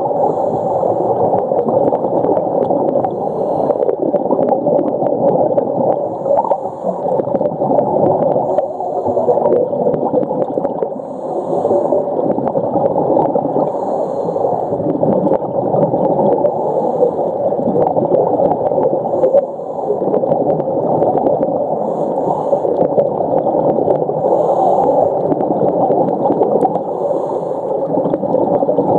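Underwater sound heard through a snorkeller's camera: a steady, muffled gurgling and bubbling of water with scattered small clicks.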